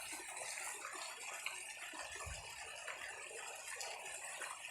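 Faint outdoor background noise, with a small tick about one and a half seconds in and a soft low thump a little after two seconds.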